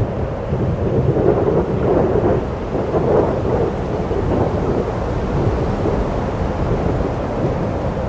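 Wind: a steady rushing noise with a low rumble of gusts on the microphone, swelling slightly about one to three seconds in.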